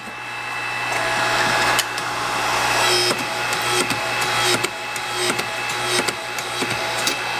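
Hydraulic pipe-bending machine running as it bends a length of exhaust tubing. It is a steady motor hum and hiss that grows louder over the first few seconds, with frequent small clicks and knocks throughout.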